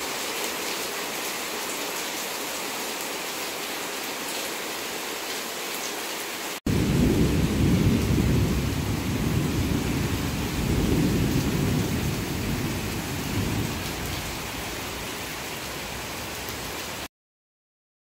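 Heavy rain pouring onto trees, leaves and ground as a steady hiss. About a third of the way in, a cut brings louder rain with a deep rumble underneath that swells and fades. The sound stops abruptly about a second before the end.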